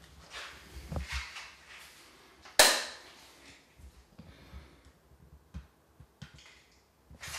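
Handling and movement noise: soft rustles and a few low thuds, then one loud, sharp click about two and a half seconds in, followed by a few small taps.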